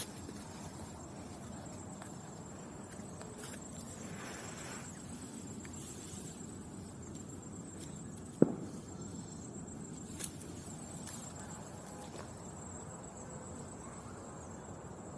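Quiet room tone: a low steady hiss under a faint, steady high-pitched whine, broken by one sharp knock a little past halfway and a few faint clicks.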